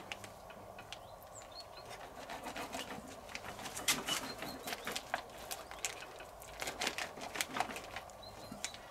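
Knife sawing through a raw rack of marinated spare ribs in its plastic pack, with irregular crackles and clicks of the plastic. A few faint short bird chirps.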